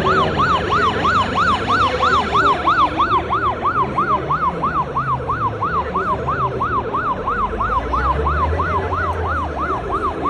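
Ambulance siren in a fast yelp, its pitch sweeping up and down about three times a second. Beneath it a vehicle engine rumbles, growing louder in the second half.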